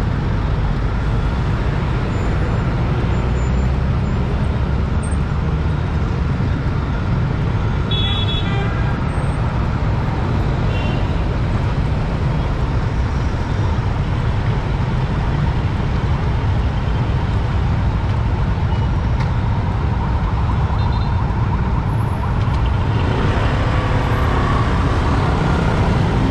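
Steady low rumble of busy road traffic, with cars, trucks and motorbikes moving through a large intersection. A couple of short high-pitched beeps come about eight and nine seconds in, and the traffic sound fills out near the end as motorbikes crowd around.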